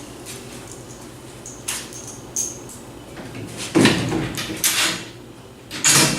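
Metal clinks and clanks as steel tree stand parts and their nut, bolt and washer hardware are handled and fitted by hand, with louder knocks about four and six seconds in.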